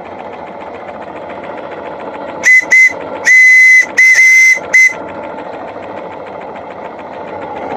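Model steam whistle blown at 20 psi in five blasts, two short, one long, one medium and a final short one, each a single steady high note with a breathy hiss and a clean cut-off. Between and around the blasts a machine runs steadily in the background.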